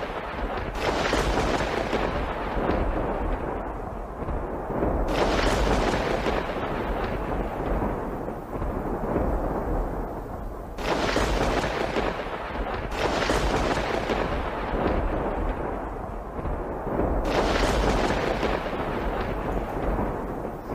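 Deep rumbling booms that swell up suddenly about five times, every four to six seconds, each dying away slowly, over a constant deep hum.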